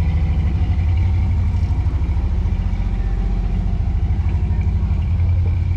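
Off-road 4x4's engine running steadily at low revs, a deep even throb with no revving.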